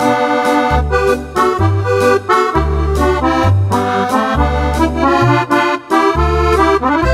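Roland digital accordion playing an instrumental tune: a right-hand melody over a left-hand accompaniment of low bass notes alternating with chords in a steady beat.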